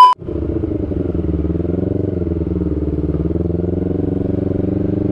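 A loud steady test-tone beep cuts off right at the start. Then a motorcycle engine runs steadily at low revs while riding, its pitch dipping and rising gently about two seconds in.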